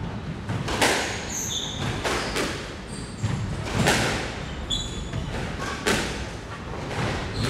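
Squash rally: the ball struck by rackets and hitting the walls, a sharp knock roughly every one and a half to two seconds, with court shoes squeaking briefly on the wooden floor twice.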